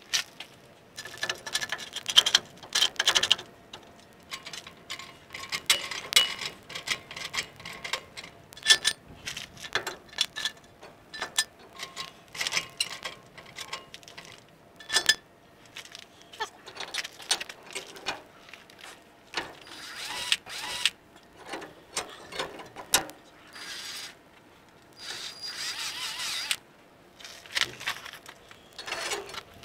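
Hand tools working on a pickup's leaf spring hardware: irregular metallic clicks and clanks, with a few longer spells of rapid clicking like a ratchet wrench.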